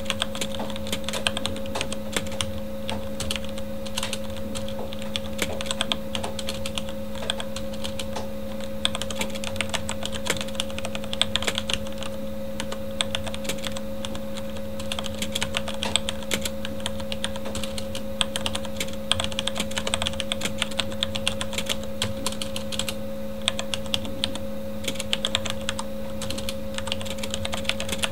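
Continuous fast typing on a Corsair K70 mechanical keyboard with Cherry MX Red linear switches, a dense, irregular run of keystroke clicks and clacks. A computer fan hums steadily underneath.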